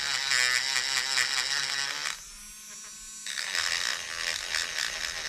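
Handheld rotary tool with a small wheel bit spinning against the plastic camera body, a high buzzing whine whose pitch wavers as the bit is pressed on and eased off. About two seconds in the whine drops away for about a second, then comes back.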